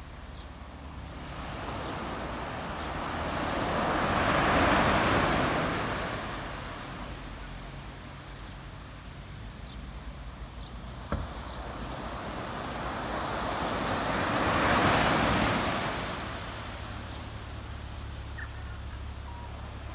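Small waves breaking and washing up a sandy beach: two swells of surf hiss about ten seconds apart, over a steady low rumble. A single sharp click a little past halfway.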